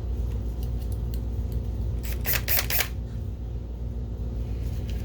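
Cordless drill-driver's clutch, set to 3, slipping with a quick run of sharp clicks as a case screw reaches its torque, about two seconds in, over a steady low hum.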